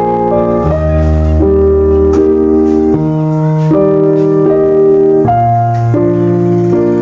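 Background music: piano or electric keyboard playing sustained chords that change about every three-quarters of a second.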